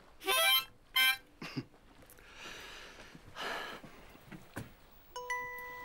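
Two short, loud harmonica chords blown in quick succession, followed by softer breathy blowing. A single steady note sounds near the end.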